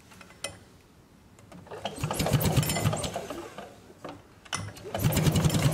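A handheld power tool cutting down at the hull floor beside the engine mount, throwing dust, in two bursts of about two seconds each with a rapid, even chatter. A single sharp click about half a second in.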